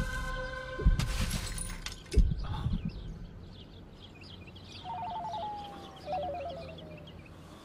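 A crash of something breaking about a second in, between deep thumps, followed by faint high chirping.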